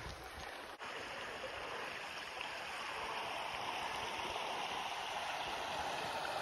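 A stream running steadily, an even rush of flowing water that comes in after a brief break about a second in, preceded by a moment of low wind rumble.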